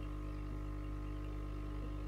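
Steady hum of aquarium equipment running, made of several constant tones with no change in pitch or level.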